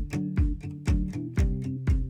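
Background music with a steady beat: a kick drum about twice a second under a bass line, with light cymbal ticks between.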